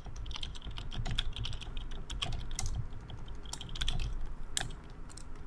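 Typing on a computer keyboard: a run of quick key clicks at an uneven pace.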